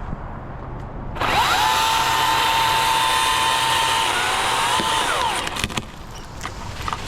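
Electric chainsaw cutting oak: the motor's high whine starts suddenly about a second in, sags in pitch partway through as the chain bites, then winds down and stops, followed by a few sharp knocks.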